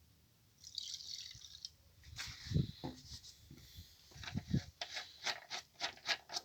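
Workshop handling sounds: a short hiss, a few dull knocks, then a regular run of light clicks, about three a second, near the end.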